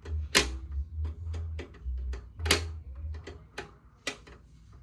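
A camera's mechanism clicking irregularly, about eight sharp clicks, with a low rumble coming and going between them: the odd noise the camera makes.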